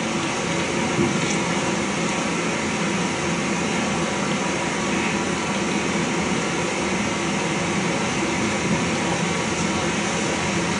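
Steady room noise, an even hiss with a faint hum, heard through a TV speaker and re-recorded by a camcorder.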